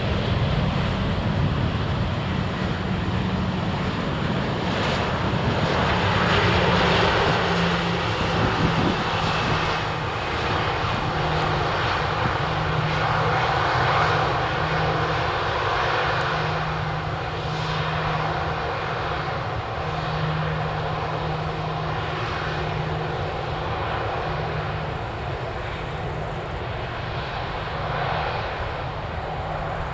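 Airbus A340-300's four CFM56 jet engines during the landing rollout, spoilers raised: a continuous jet roar over a steady low hum. It is loudest through the first half, then fades gradually as the airliner moves away.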